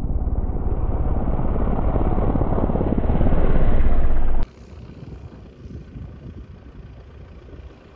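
Loud rushing rumble from a glider's takeoff roll on aerotow passing close to a camera lying at runway level, with wind on the microphone, growing louder over about four seconds. It cuts off abruptly to a much quieter, steady outdoor wind hiss.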